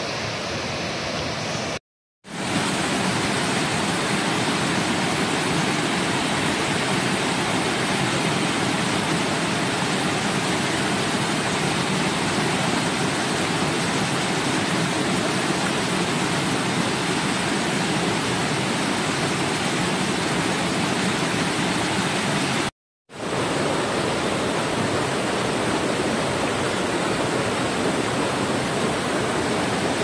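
Rushing water of a rocky river cascading over boulders, a steady full rush. It drops to silence for a moment twice, about two seconds in and again about twenty-three seconds in.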